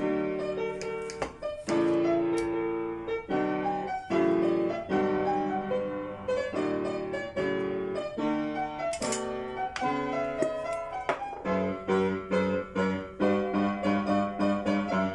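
Background piano music: a run of notes and chords played one after another at an even pace.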